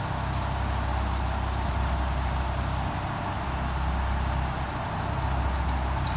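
Steady low rumble of a motor vehicle engine running, even throughout with no change in pitch.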